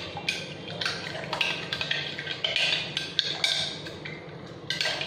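A spoon stirring water, sugar and yeast in a glass jar, clinking against the glass in quick, irregular taps.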